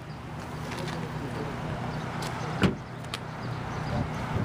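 Trunk lid of a Pontiac G6 hardtop convertible being closed, shutting with a single thump about two and a half seconds in, with a couple of lighter clicks around it, over a steady low hum.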